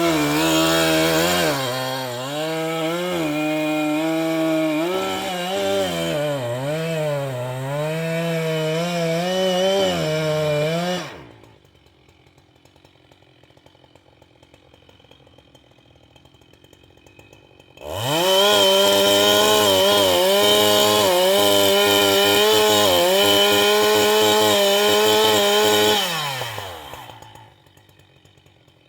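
Two-stroke chainsaw running at high revs, its pitch dipping and wavering under load as it cuts into a tree. It drops away about eleven seconds in. After a quiet spell it revs up again, runs steady for about eight seconds, and winds down.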